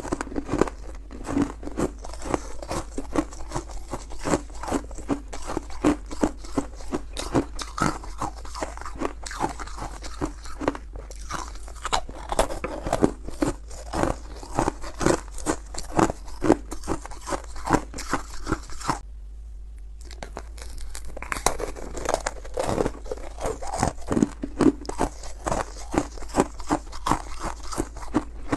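Freezer frost being bitten and chewed close to the microphone: a dense, uneven run of crisp crunches, broken by a pause of about a second about two-thirds of the way through.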